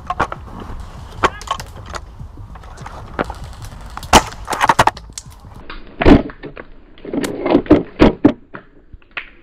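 Irregular sharp snaps and knocks, typical of airsoft guns firing single shots, loudest about four, six and eight seconds in. The sound turns duller a little before the six-second mark.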